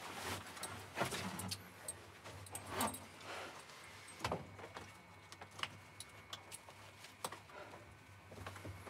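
Faint scattered clicks and short rustles of handling or movement, over a low steady hum.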